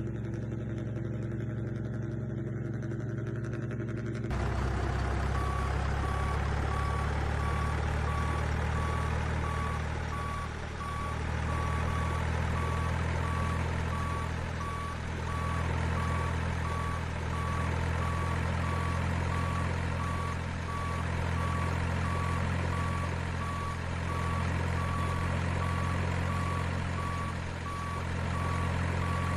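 Heavy truck engine running steadily, joined by a reversing beeper giving an even run of high beeps. Both cut in abruptly about four seconds in, and the engine swells and dips every few seconds.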